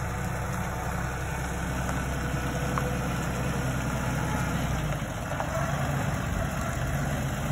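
Massey Ferguson compact loader tractor's diesel engine running steadily as the tractor moves with its front bucket raised; the engine note shifts about five seconds in.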